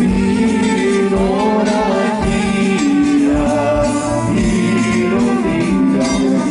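Macedonian folk song: a melody over instrumental accompaniment with a steady low drum beat.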